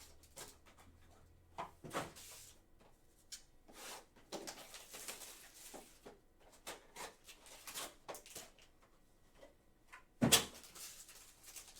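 Trading card packs and cards being handled: scattered light rustles and clicks of wrappers and card stock, with one louder knock about ten seconds in.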